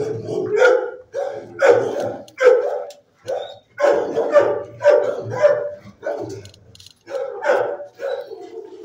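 Dog barking repeatedly, about two barks a second, with a short break about seven seconds in.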